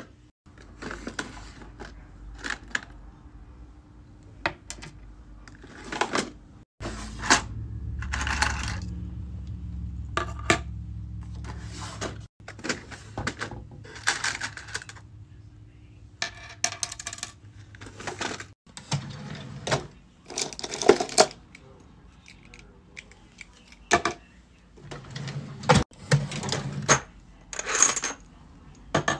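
Colourful metal keychains and key rings clink and rattle as hands rummage through them in plastic storage drawers. Short knocks and clicks of the plastic drawers are scattered among them.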